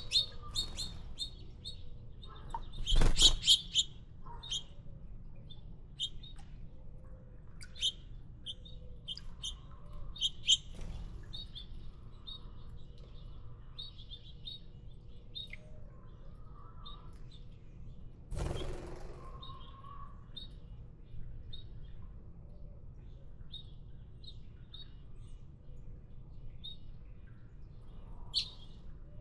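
Small songbirds chirping: short, high, repeated tweets scattered throughout. A louder burst of noise breaks in about three seconds in, and a shorter one just past the middle.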